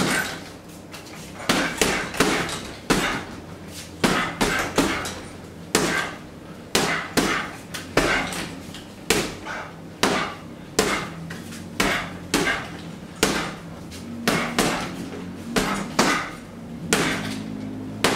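Boxing gloves punching a hanging heavy bag: sharp smacks in quick combinations of two or three, with short pauses between them.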